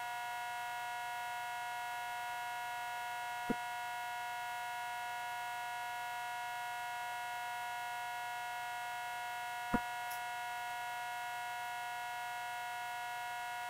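Steady electrical hum made of several fixed tones, with two short clicks, one about three and a half seconds in and another near ten seconds.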